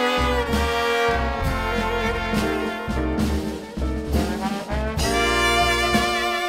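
A brass-led band playing, with trumpet and trombone over a pulsing bass line; the horn section thins out briefly midway and comes back in full about five seconds in.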